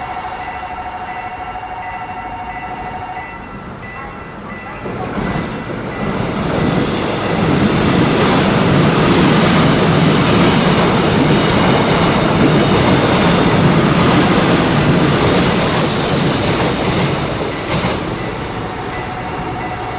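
A Gyeongwon Line train passing over a level crossing: its rumble and wheel clatter build from about five seconds in, stay loud for about ten seconds, then ease off near the end. A steady electronic warning tone, the crossing's signal, sounds at the start, stops about three seconds in, and comes back near the end.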